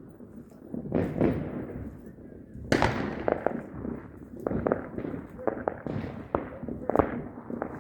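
Fireworks going off: a burst about a second in, a louder sharp bang just under three seconds in whose rumble fades slowly, then a quick run of crackling pops.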